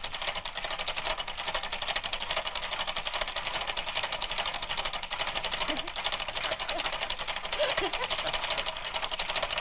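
Film projector running: a rapid, steady mechanical clatter.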